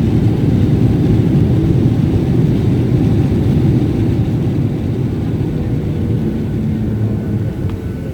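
Boeing 737 engine and airflow noise heard from inside the passenger cabin: a loud, steady low rumble that eases slightly over the last few seconds.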